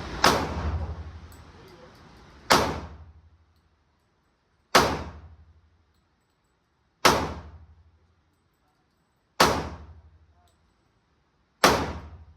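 Pistol fired in slow, deliberate single shots: six loud reports about two seconds apart, each dying away over about a second.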